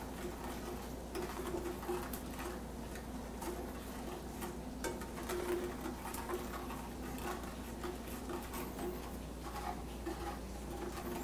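Metal spoon stirring a thick, sticky sauce in a stainless steel sauté pan: faint, irregular soft scraping and squelching over a steady low hum.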